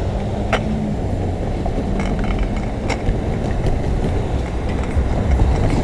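Cars passing close by over a railway level crossing: a steady low rumble of engines and tyres, with a couple of short sharp clicks.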